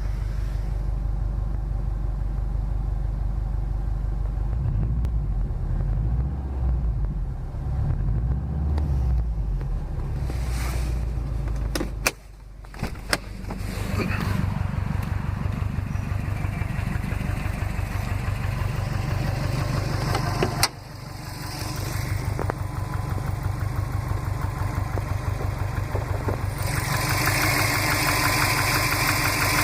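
Saab 9-2X Aero's turbocharged 2.0-litre flat-four running steadily at idle, warm, with a rapid rhythmic knock that the owner suspects is piston slap. Twice the sound briefly drops away, with a few sharp clicks.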